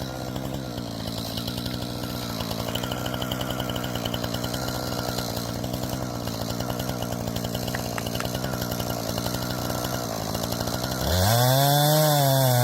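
Chainsaw engine idling with a fast even pulse, then revved up sharply about eleven seconds in, louder and higher, its pitch wavering.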